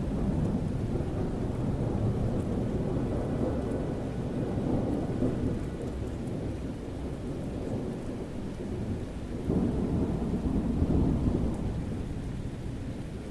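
Summer thunderstorm: thunder rumbling low and continuously over steady rain, with a louder roll of thunder about ten seconds in that then eases off.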